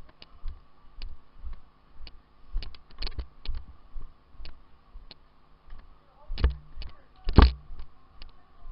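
Airsoft guns firing: irregular sharp clicks and snaps of BB shots, with two louder thumps about six and a half and seven and a half seconds in.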